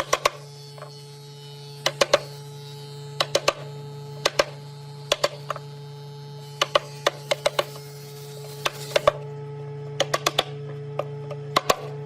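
Repeated sharp knocks, mostly in quick clusters of two to four about a second apart, over a steady low hum.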